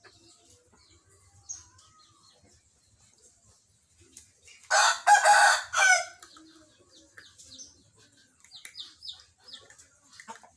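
One loud animal call, about a second and a half long, about halfway through, followed by a few short high chirps near the end.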